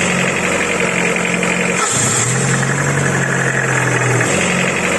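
Petrol car engine idling with hydraulic valve lifters tapping, the lifter knock the owner hears on both cold and hot starts. The engine note shifts slightly about two seconds in.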